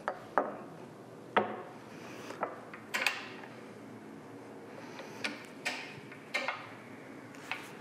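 Sharp, irregular clicks and knocks, about nine in all, from arbor-press work: a Delrin pusher block handled and seated on a bearing-bronze bushing, and the press bearing down on it as the bushing is pressed into its steel housing.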